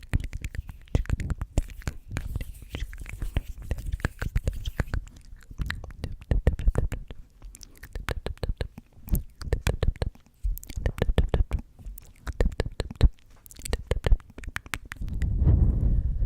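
Close-miked ASMR hand and mouth sounds: a fast run of rustles, taps and 'tk tk' clicks, then a breath blown across the microphone near the end.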